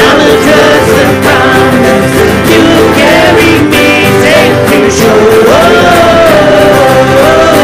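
Acoustic guitars strumming with voices singing a worship song; a long sung note is held in the second half.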